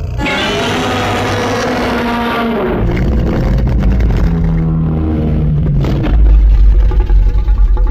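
Loud monster sound effect made for a Godzilla-style creature: a pitched, roar-like cry that starts suddenly and falls in pitch over the first two and a half seconds, then a heavy deep rumble that grows louder near the end.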